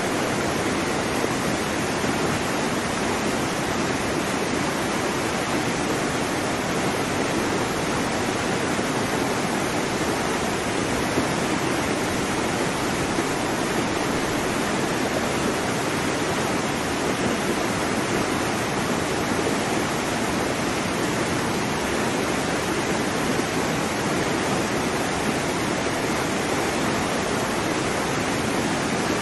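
Steady rushing water noise, even and unbroken, with no rise and fall of separate waves.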